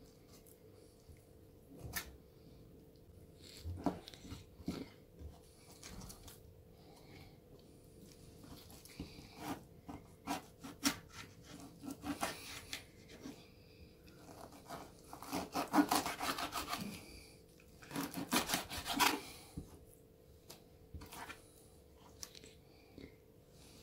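Kitchen knife filleting a raw sole on a wooden cutting board: scattered scraping and tapping of the blade against the wood and the fish, with two longer, louder bouts of scraping about two-thirds of the way through.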